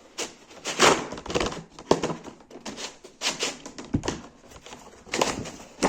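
A soldering gun's box and packaging being opened by hand: an irregular run of rustling, crinkling and tapping.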